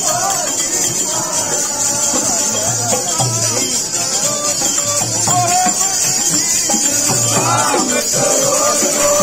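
Procession kirtan: a group of men singing a Sikh devotional hymn together over a hand drum beating and a steady metallic jingling of hand percussion.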